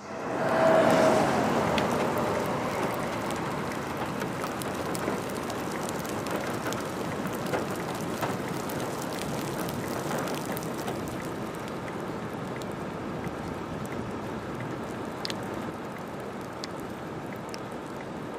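Steady rush of storm wind and rain with scattered sharp ticks of drops striking. It starts suddenly, is loudest about a second in, then eases slightly.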